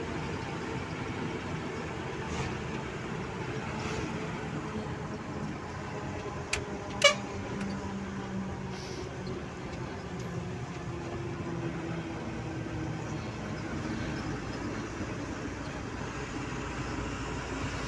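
Tata tipper truck's diesel engine and road noise heard from inside the cab while driving at steady speed. About seven seconds in, a brief sharp sound, the loudest moment, comes just after a smaller one: a short horn toot.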